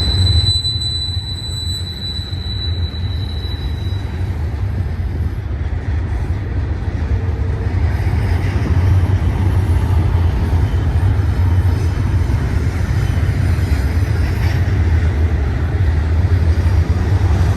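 Intermodal freight train's container well cars rolling past close by, a steady low rumble of wheels on rail. A high steady wheel squeal fades out about four seconds in.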